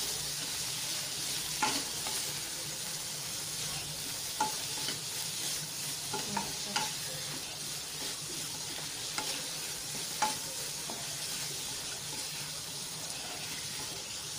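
Ridge gourd pieces sizzling in oil in a wok while a wooden spatula stirs them, with a steady hiss and now and then a sharp knock or scrape of the spatula against the pan.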